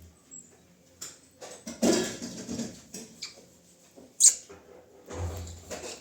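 Pet budgerigars chirping and chattering in short irregular calls, with one sharp, loud chirp about four seconds in.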